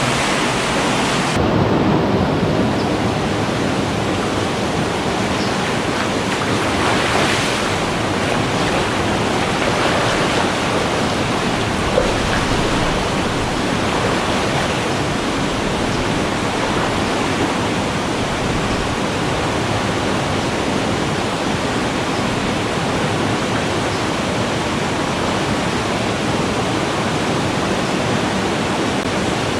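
Rushing water of a small creek tumbling over little waterfalls, a steady, loud hiss. One brief knock sounds about twelve seconds in.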